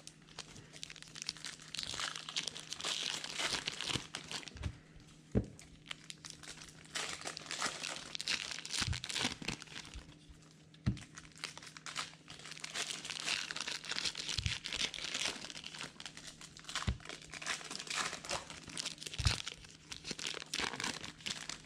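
Trading card packs being torn open and their wrappers crinkled, in long stretches of crackling, with a few sharp knocks in between.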